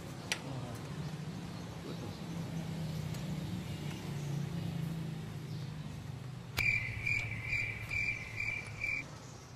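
A steady low hum throughout, with a single click just after the start. About two-thirds of the way in come five or six high, evenly repeated animal chirps, about two a second, lasting some two and a half seconds.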